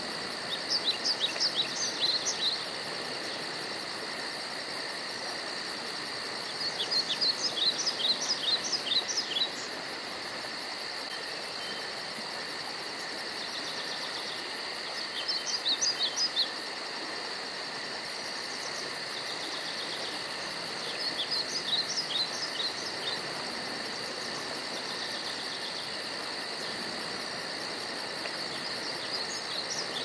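Steady high insect trilling, with a songbird singing over it. The bird repeats a quick phrase of sharp, high, down-slurred notes five times, about every six or seven seconds.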